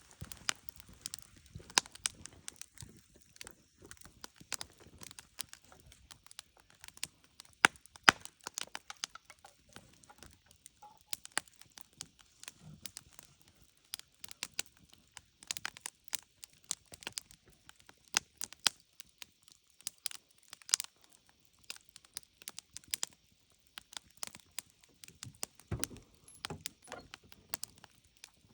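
Campfire crackling and popping: many irregular sharp snaps, a few of them much louder than the rest.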